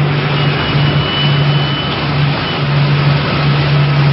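Motorboat engine running steadily under way, a constant low hum under loud rushing wind and water noise.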